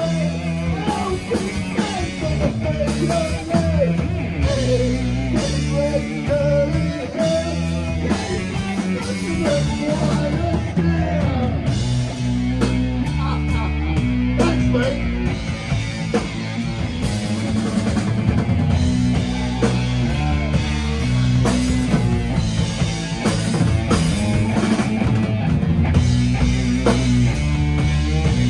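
Live heavy rock band playing loudly: distorted electric guitar and drum kit pounding out a slow, heavy riff, with a singer's voice over it.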